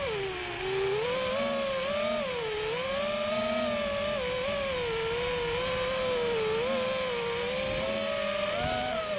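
FPV racing quadcopter's brushless motors whining, picked up by the onboard camera; the pitch wavers up and down with the throttle, dipping briefly about half a second in.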